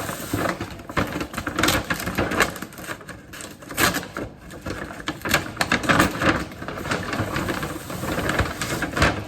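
Plastic shopping bags and packaging rustling and crinkling as groceries are handled and unpacked, in a dense, irregular crackle.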